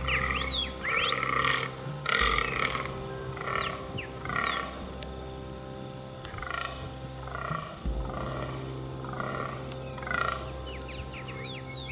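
Fallow buck groaning in the rut: a run of short, belching groans at about one a second, with a brief pause midway. Small birds chirp over it.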